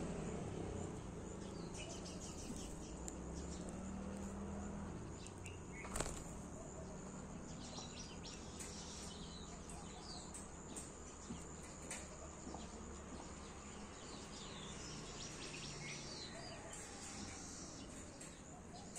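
Small birds chirping in short scattered calls over a steady outdoor background hiss, with a faint steady high-pitched tone. A single sharp click about six seconds in is the loudest sound.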